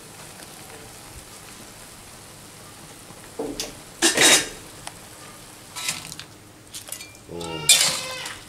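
A wok of mantis shrimp and vegetables simmering with a steady hiss. From about three and a half seconds in, a metal spatula scrapes and clanks against the wok several times as the food is stirred and dished out.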